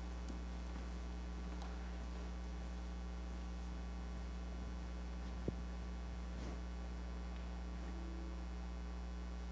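Steady electrical mains hum with a few faint soft ticks and one short click about five and a half seconds in.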